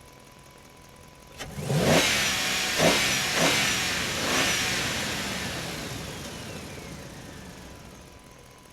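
A truck engine revving in four rising surges after a sharp click, then fading away slowly, echoing in a parking structure.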